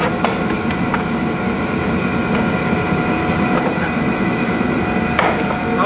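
A steady mechanical drone with several high, steady whining tones over it, and a sharp click about five seconds in.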